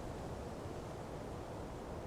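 Ocean breeze blowing steadily through palm fronds: an even, rustling rush of wind with no distinct gusts.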